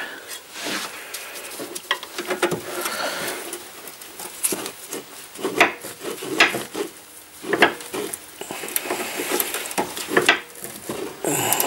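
12mm spanner working a seized drop-link top nut while mole grips hold the link: scattered metallic clinks and knocks with bursts of scraping and rubbing as the spanner turns and shifts. The link's stud is spinning in the mole grips instead of the nut coming undone.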